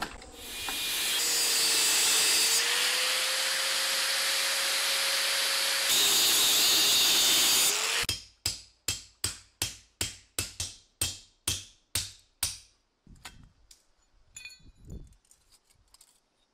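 A loud steady rushing hiss from the hydraulic forging press squeezing the hot canister. About eight seconds in it gives way to a hammer striking a chisel on an anvil, about thirteen sharp blows at roughly three a second, as the steel canister wall is cut open. Fainter taps and clinks follow as the cut shell is worked off.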